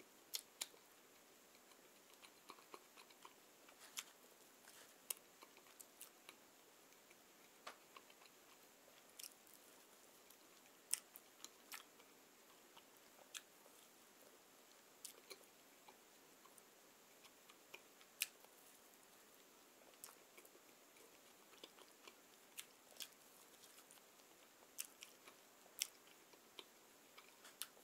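Faint, close-miked chewing and biting of bread, with irregular sharp mouth clicks and crackles every second or two.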